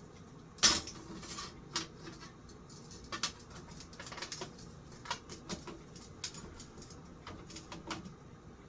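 Scattered light clicks, taps and scrapes from hands working on a ceiling fan's motor housing, with one sharper click under a second in.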